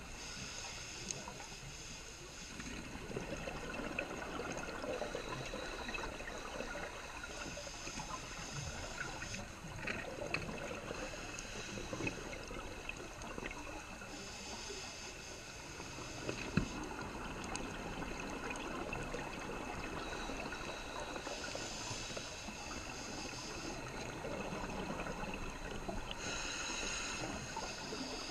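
Muffled rush of water heard underwater on a scuba dive, with a scuba regulator's breathing hiss and bubbles coming back about every six to seven seconds, plus a few small clicks.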